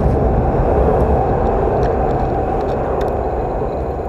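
Loud, steady rumbling roar of a passing vehicle or aircraft overhead, slowly fading.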